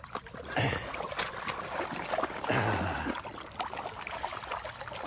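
Water trickling and splashing, with scattered small drips and two louder splashy bursts, about half a second and two and a half seconds in.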